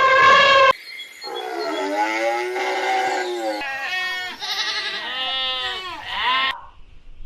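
Goats bleating in a few spliced clips: a short call that cuts off, one long drawn-out bleat, then a string of quavering bleats.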